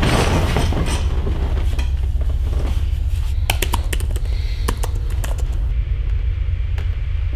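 Dell laptop keyboard being typed on, a scatter of sharp key clicks a few seconds in, over a steady loud low drone; a short burst of noise at the very start.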